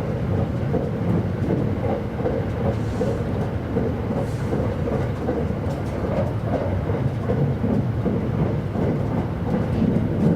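Running noise inside a JR East E259 series Narita Express train at speed: a steady low rumble of wheels on rail and the car in motion.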